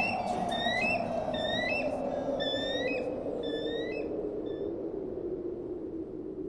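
Short, high, bird-like chirping whistles repeating about twice a second over a low sustained tone that slowly fades. The chirps stop about three and a half seconds in.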